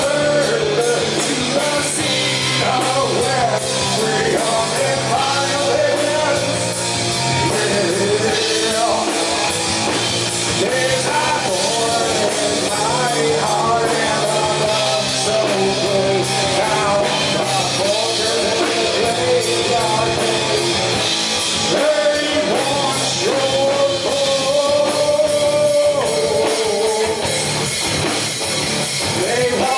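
Live rock band playing at full volume: electric guitars, bass guitar and drum kit through the club's PA, with a steady stepping bass line under wavering guitar or vocal lines.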